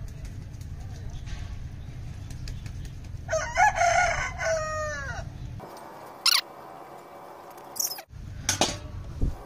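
A rooster crowing once, about three and a half seconds in, over the steady splash of hot water being poured from a steel bowl into a motorcycle engine's oil filler.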